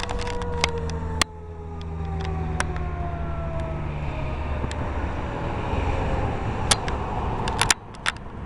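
Federal Signal Thunderbolt 3T22 outdoor warning siren winding down at the end of its test, its pitch sinking slowly as the rotor coasts down. Scattered sharp clicks and a low rumble run under it, and the rumble cuts off suddenly near the end.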